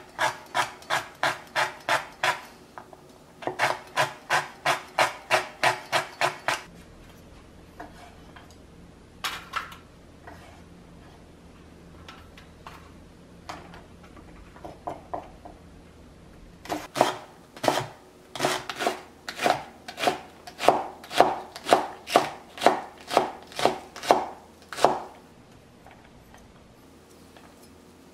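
Chef's knife chopping on a wooden cutting board in runs of quick, even cuts, about two or three a second, first through frozen green chili peppers. After a pause with only a few scattered cuts, a longer run slices green onion into rings.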